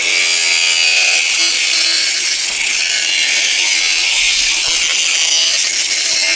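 Angle grinder cutting through a pipe: a loud, steady, high-pitched grinding hiss that stops abruptly near the end.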